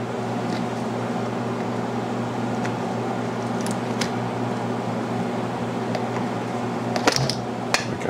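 Steady mechanical hum with a low, even tone, and a few light clicks of small metal carburetor linkage parts being handled, sharpest about seven seconds in.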